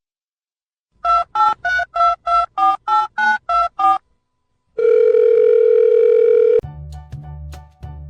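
Telephone keypad tones: about eleven quick beeps of a number being dialled, each beep a two-note tone, then a steady tone for about two seconds that cuts off suddenly. Music with a steady beat starts near the end.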